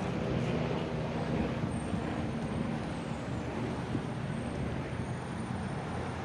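Steady rushing noise of an e-bike riding across asphalt, with city street traffic and a faint high whine in the background.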